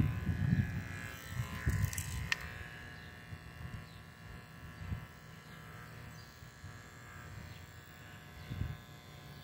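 Andis electric hair clippers running with a steady hum as they clip a cat's fur around its neck and head. A few low knocks of handling in the first two seconds and one sharp click a little over two seconds in.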